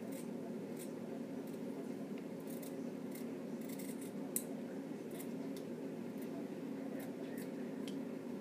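Scissors snipping, cutting small holes in a folded piece. About a dozen short, irregular snips, the loudest a little past four seconds in, over a steady low hum.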